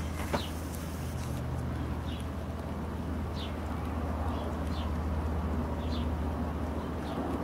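Short, high, falling bird chirps every second or so over a steady low hum like distant traffic.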